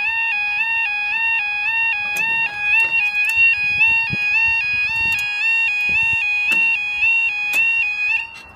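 UK level crossing yodel alarm: a loud warbling tone switching between two pitches about twice a second, which cuts off suddenly near the end as the barrier reaches the down position. A few short knocks sound under it.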